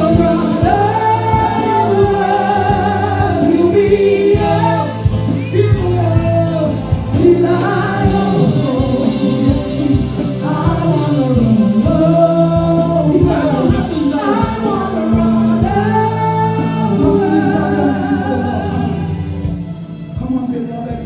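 Gospel worship singing led by a woman's voice through a microphone and PA, over sustained low accompaniment notes and a steady percussion beat.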